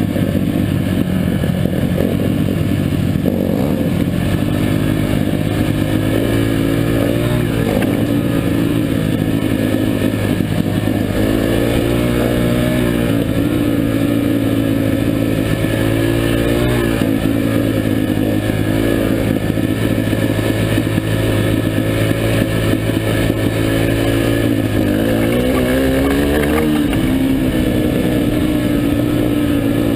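Four-stroke single-cylinder Yamaha trail dirt bike engine running while riding along a dirt trail. Its pitch rises and falls several times as the throttle is worked and the gears change.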